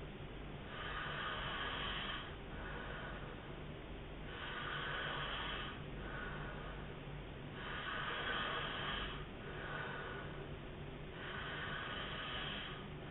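A man snoring in his sleep: slow, noisy breaths about every three and a half seconds, each a louder breath followed by a softer one, four times over.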